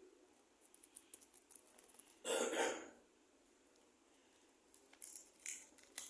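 A single harsh cough, about two seconds in, from a man who is sick, with faint light clicks and rustles scattered around it.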